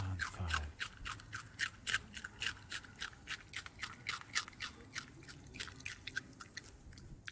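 Rabbit chewing food: a quick, steady run of crisp crunching nibbles, about four a second.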